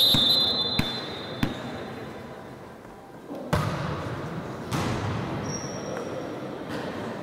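Sounds of a school volleyball game. A referee's whistle blast fades out in the first couple of seconds, then the ball is struck sharply twice. About halfway through, a louder stretch of noise from players and spectators begins.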